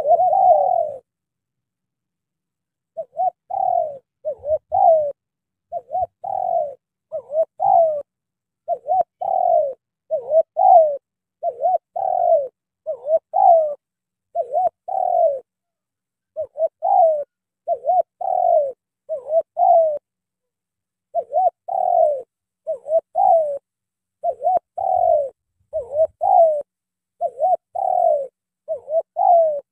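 Spotted dove cooing: a run of short coos, each falling in pitch, given in groups of two or three. One pause comes about a second in and another roughly two-thirds of the way through.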